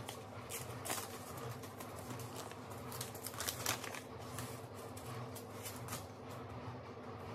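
Small clicks and rustles of hands handling seeds and a small seed container over a plastic seed-starting cell tray, in scattered bursts with a cluster a little past the middle. A steady low hum runs underneath.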